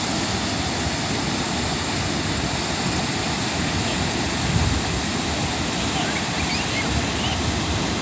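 Steady rushing of a low waterfall cascading over a rock ledge into a pool, with a few faint high chirps in the second half.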